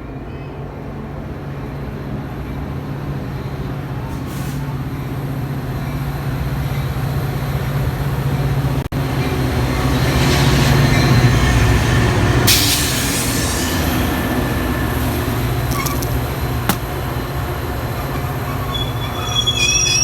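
Train running into the station: a steady low rumble that grows louder, with a short hiss partway through and high, wavering wheel squeal starting near the end.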